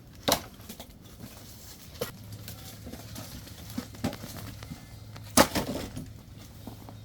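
Scattered knocks and clatters of firewood logs being handled, the loudest cluster about five and a half seconds in, over a faint steady low hum.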